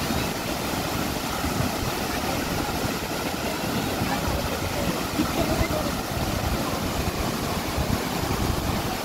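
Floodwater from a rain-swollen reservoir spilling over a long concrete dam weir and churning at its foot, a steady heavy rush of falling water.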